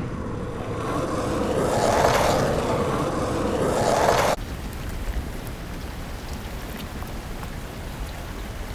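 Two sound-effect samples cut together: a swelling, rushing noise that stops abruptly about four seconds in, then a steadier, quieter rumbling ambience with faint ticks.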